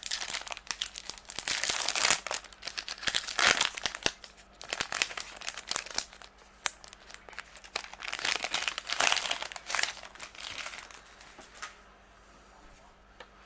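Wrapper of a 2018 Update baseball card pack being torn open and crinkled by hand, with irregular crackling that dies away about a second and a half before the end.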